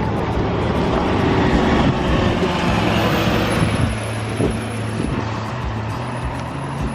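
City bus engine running with a steady low hum, the road noise swelling over the first few seconds and then easing off.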